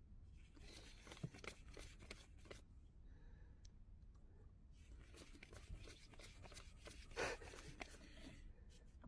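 Faint crisp flicking and rustling of a stack of paper banknotes being counted by hand. It comes in two runs of quick flicks with a short pause between, and there is one sharper snap of paper near the end.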